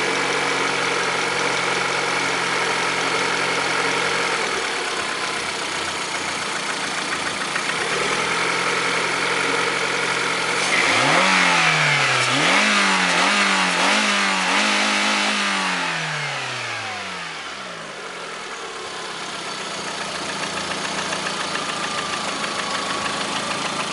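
Lada Priora's 16-valve four-cylinder engine (VAZ-21126) idling, then revved in several quick blips about halfway through and falling back to idle. The owner says this engine began knocking about 500 km after a Suprotec additive was put in.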